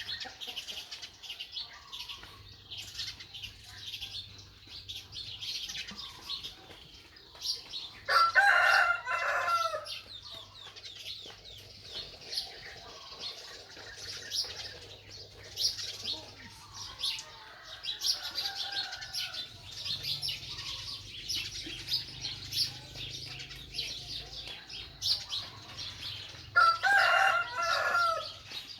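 Two loud, drawn-out animal calls of about two seconds each, one about eight seconds in and one near the end, over constant high-pitched chirping.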